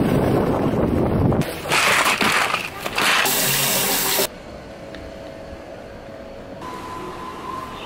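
A run of short, abruptly cut clips: road noise while riding in slow traffic, then tap water running over hands at a sink, then a much quieter stretch.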